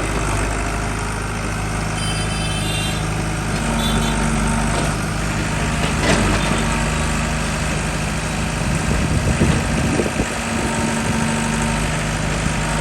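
Heavy diesel engine of earth-moving machinery running steadily, with a few brief knocks and clanks around the middle.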